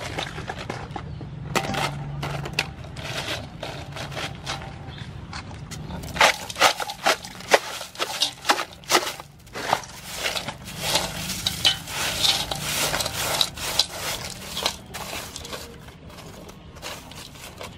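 Crushed ice poured over raw blue crabs in a large metal basin: a dense crackling clatter of ice pieces landing on shells and metal, strongest from about a third of the way in, then softer scraping as a hand spreads the ice over the crabs.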